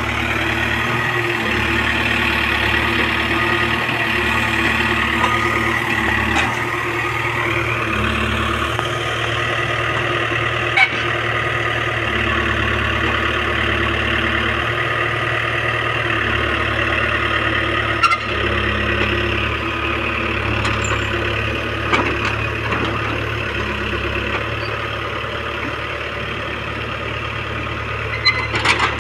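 Case 851EX backhoe loader's diesel engine running steadily as its backhoe bucket pulls a concrete mixer, with a few sharp knocks at intervals, the last two close together near the end.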